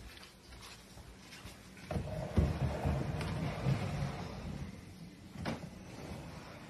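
A sliding glass patio door rolling open on its track, then a single sharp knock about a second later.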